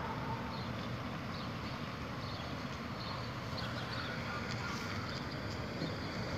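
Steady outdoor street noise: a low rumble of traffic and engines with wind on a phone microphone, and faint short high chirps scattered through it.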